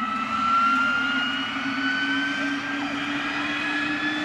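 Westland Wasp helicopter's Rolls-Royce Nimbus turboshaft spooling up during start-up: a steady turbine whine rising slowly in pitch as the main rotor gathers speed.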